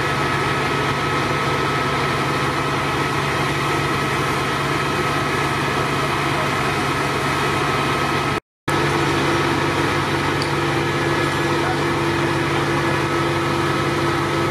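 Engine-driven fire-service equipment running steadily: a constant drone with a few high, steady whining tones. The sound drops out for a moment a little past the middle, and a lower steady hum joins after it.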